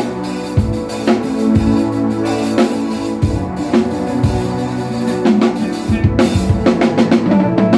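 Loud music led by a drum kit, with kick and snare keeping a steady beat about twice a second over held bass notes, and a run of quicker drum hits near the end.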